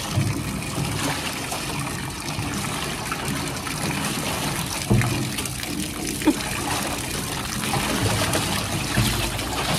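Hose water pouring steadily into a tank pool as a lion digs and paws at the water, splashing, with a few sharper splashes and knocks about halfway through and near the end.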